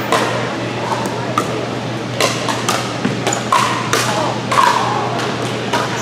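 Pickleball paddles hitting a plastic pickleball, with the ball bouncing on the court: a quick run of sharp pops at irregular spacing, about a dozen in six seconds.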